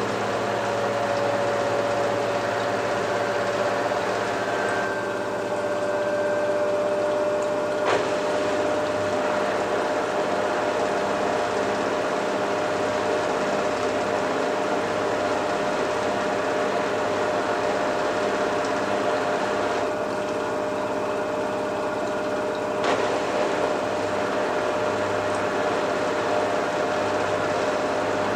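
LG front-loading washing machine in its final spin: the drum spinning fast with a steady motor whine over a rushing noise. Twice, the higher hiss dips for a few seconds and ends with a click.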